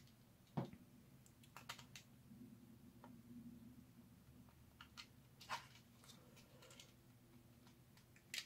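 Faint, scattered light clicks and taps of plastic blaster shell parts being handled and fitted together, about half a dozen in all, the first about half a second in the loudest.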